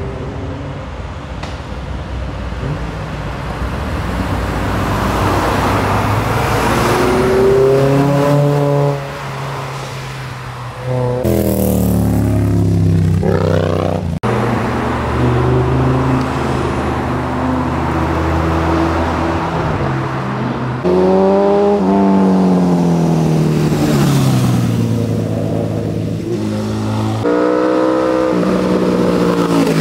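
Motorcycles, with a car among them, passing one after another on a winding road, their engine notes rising as they accelerate and falling away as they go by. Several separate passes follow each other.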